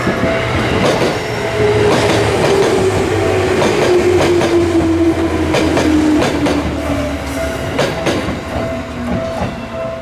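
Electric commuter train passing over a level crossing: wheels clacking over the rail joints, with a motor whine slowly falling in pitch and a low rumble. The crossing's warning bell keeps ringing.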